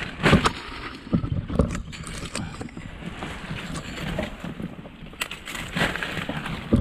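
Irregular rustling and scraping of leaves and clothing close to the microphone over a low rumble, with a few louder knocks about a third of a second in and again between five and six seconds in.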